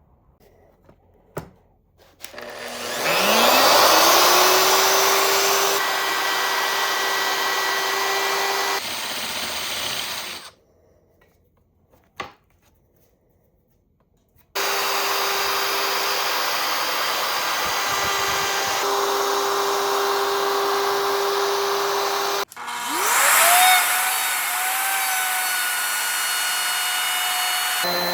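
Electric power tool motor spinning up with a rising whine, then running steadily. It stops and starts abruptly a few times. Near the end it spins up again and settles at a higher pitch.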